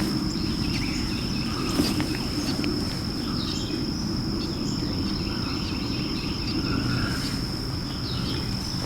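Woodland ambience: a steady high-pitched insect drone, with scattered short bird chirps over a low rumble.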